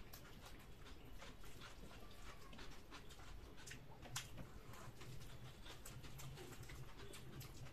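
Faint eating sounds: fingers mixing rice and dal on steel plates and mouths chewing, a scatter of soft clicks and smacks, with one sharper click about four seconds in.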